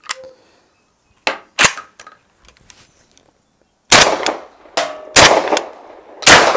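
Vepr-12 semi-automatic shotgun fired through a Salvo 12 suppressor: two sharp metallic clacks as the gun is handled, then three loud suppressed shots about a second apart starting about four seconds in, with the action cycling and ejecting the shells.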